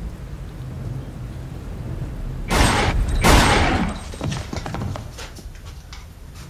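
Two loud gunshots about three-quarters of a second apart, each trailing off in echo.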